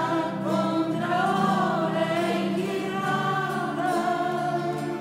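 Choir singing a slow song in long held notes, over a steady low accompaniment.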